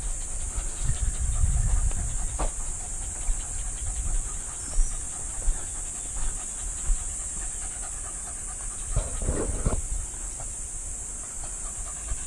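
Hunting dogs barking and yelping a few times, with a short burst of cries about nine seconds in, over a steady high hiss.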